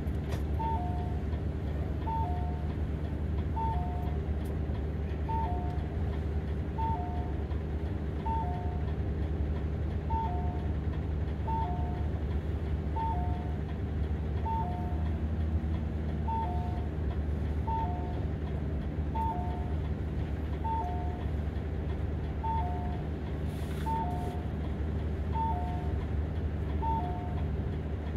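A Hino city bus's door-open warning chime repeating a two-note high-low ding-dong about every one and a half seconds while the exit door stands open. Under it the bus engine idles steadily.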